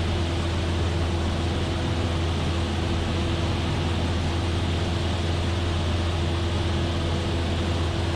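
Cessna 172F in flight, heard from inside the cockpit: the steady drone of its six-cylinder Continental O-300 engine and propeller with airflow noise, a deep even hum under a steady tone.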